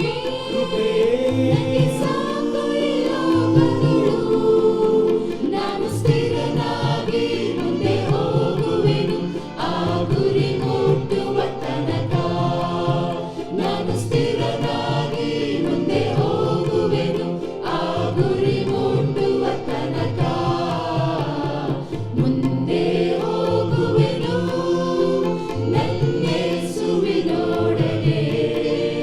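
A choir singing a hymn with instrumental accompaniment, with the voices carrying a melody over steady backing and occasional sharp percussive hits.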